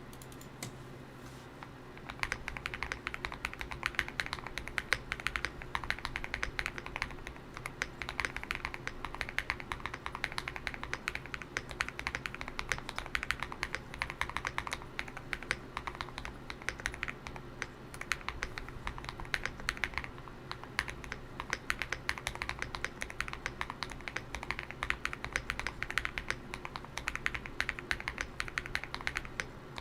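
Fast, continuous typing on a GMK67 mechanical keyboard with lubed KTT Grapefruit linear switches, tape-modded and foam-dampened, starting about two seconds in.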